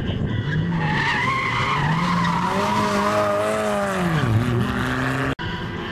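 Rally car's engine revving hard through a tarmac corner with its tyres squealing; the revs climb and hold, then fall sharply about four seconds in. The sound drops out for an instant near the end.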